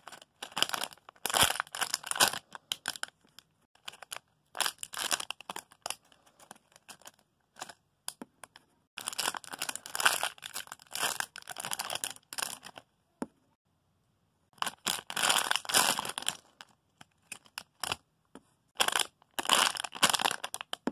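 Squishy foam toys being squeezed and handled close to the microphone: bursts of crinkling, rustling noise with short pauses between them.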